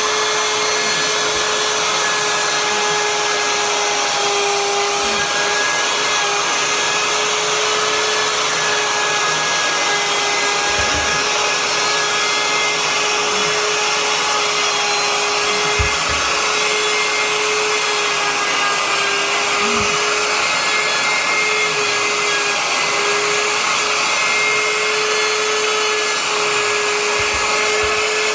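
Corded trim router running at a steady high whine as its bit cuts wood, with a few brief low knocks.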